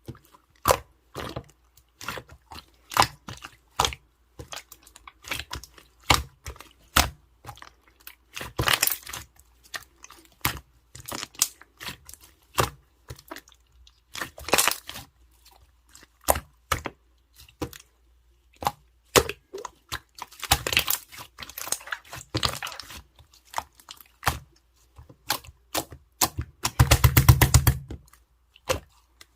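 Slime being squeezed and worked by hand, giving an irregular stream of sharp clicks, pops and crackles. Several denser runs of crackling come through, the densest near the end.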